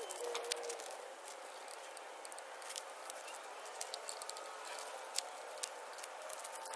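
Scattered light clicks and taps from handling an upside-down electric bike, over a faint steady hiss.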